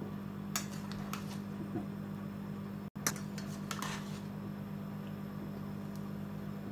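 A spatula stirring chunks of potato and aubergine in a steel pot, with a few short scrapes and knocks against the pot, over a steady low hum.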